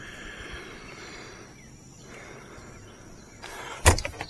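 Faint outdoor background of insects with a steady high-pitched drone, and a single sharp knock near the end.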